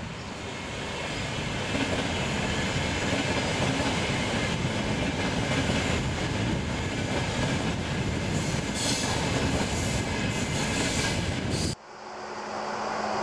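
ETR 450 Pendolino electric tilting train running past on a curving track: a steady loud rumble and rush of wheels on rail. It cuts off abruptly near the end, giving way to a quieter steady hum and the noise of a train swelling as it approaches.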